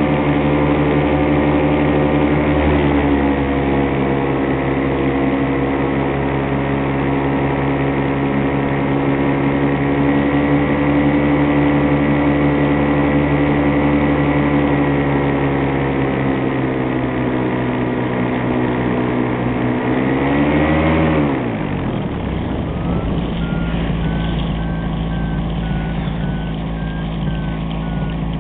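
Miniplane Top 80 paramotor's two-stroke engine and propeller running steadily under power. About 20 seconds in, the pitch rises briefly and then falls sharply as the throttle is closed, settling to a lower, quieter idle.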